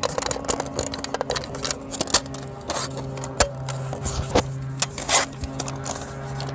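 Plastic smoke detector being handled and fitted back together: irregular sharp clicks, taps and small rattles, over a steady low hum.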